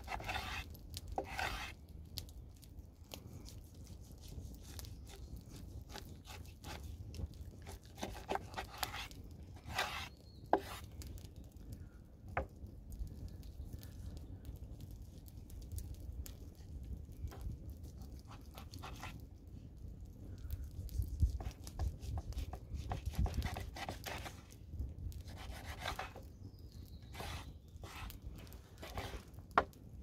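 A kitchen knife cutting raw beef into chunks on a wooden cutting board, with scattered soft cutting sounds and a few sharp taps of the blade on the board, over a steady low rumble.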